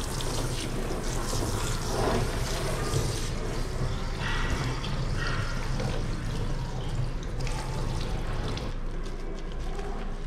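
Running water from a bath sprayer splashing and trickling over a cat's wet fur in a tub, with a low steady hum underneath.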